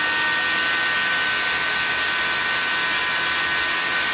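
A 940 oscillating cast saw with a vacuum hood running steadily with no load, giving an even high whine. The blade vibrates back and forth rather than spinning.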